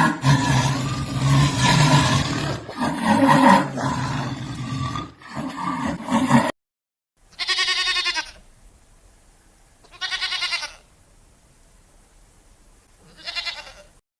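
Three wavering, bleat-like animal calls, each under a second long and a couple of seconds apart. Before them comes a few seconds of dense, low animal sound that cuts off suddenly.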